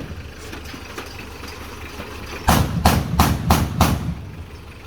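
Truck engine idling low, with a quick run of five loud bangs, about three a second, a little past halfway.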